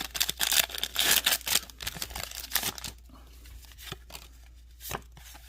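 Foil booster pack wrapper of Pokémon trading cards crinkling and tearing open in dense crackles for about three seconds, then a few soft single clicks of handling.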